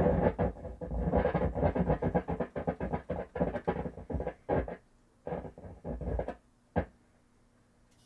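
The Philco wireless remote control being operated by hand: rapid, irregular mechanical clicking and rattling in several bursts for about six seconds, then one more sharp click near the end.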